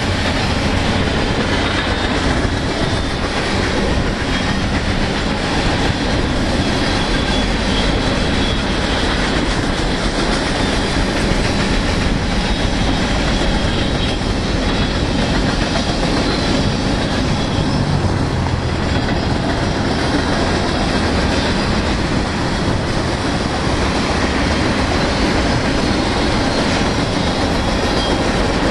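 A BNSF manifest freight train, a long string of covered hopper cars, rolling past with a loud, steady rumble of steel wheels on the rails.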